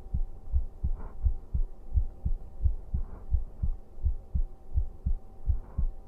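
A man's heartbeat heard close up: a steady rhythm of soft low thumps, about three a second.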